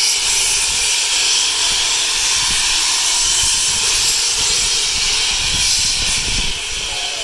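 Steam locomotive blowing steam from its open cylinder drain cocks: a loud, steady hiss that eases a little near the end.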